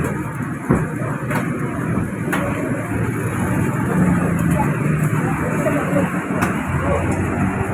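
Busy roadside ambience: steady traffic noise with distant voices and a few sharp clicks.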